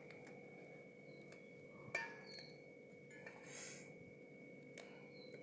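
Faint kitchen handling sounds over a low steady hum: one sharp clink of a utensil about two seconds in, a few lighter ticks and a brief soft rustle.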